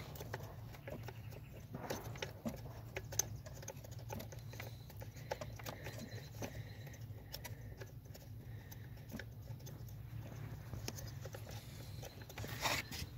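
Scattered light clicks and taps, irregular and sharp, over a low steady hum.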